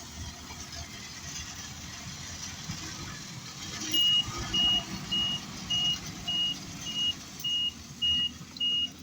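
Isuzu Elf truck's 4JJ1 four-cylinder turbodiesel running, the engine shown for its turbo failure symptoms. From about four seconds in, a reversing alarm beeps steadily at one high pitch, a little under two beeps a second, louder than the engine.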